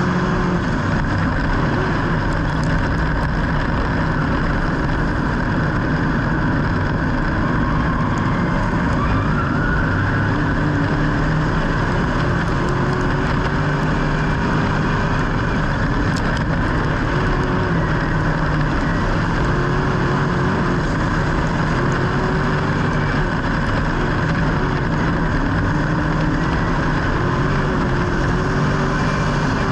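A vehicle's motor running steadily and continuously, with a dense, even noise and faint wavering tones.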